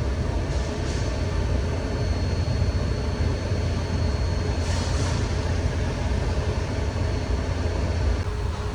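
Car's engine and climate-control blower running: a steady low rumble with air rushing through the vents, and a louder rush of air right at the end. This is a test of the HVAC modes with a new air flap servo motor, and no clicking is heard.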